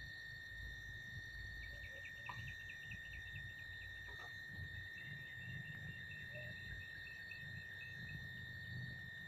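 Insects droning with a steady high pitch. Over the drone come two runs of rapid chirps, about four or five a second, the first a couple of seconds in and the second from around the middle.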